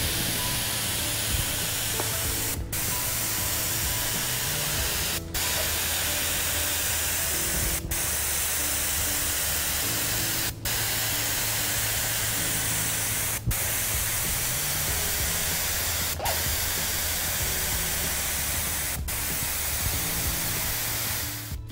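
Compressed-air spray gun spraying lacquer sealant in a steady hiss, cutting out briefly about every two and a half seconds.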